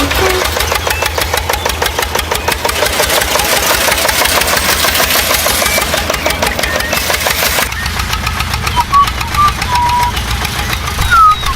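A small engine running with a fast, even knocking beat. About eight seconds in the sound changes abruptly to a lower hum, with short high chirps over it near the end.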